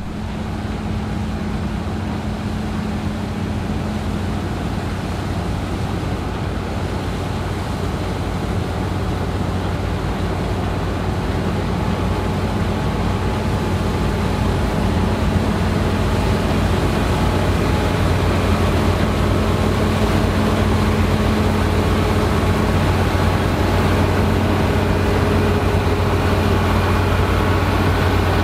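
Claas Lexion 8900 combine harvester running steadily as it harvests: a constant engine drone with a low steady hum, growing gradually louder.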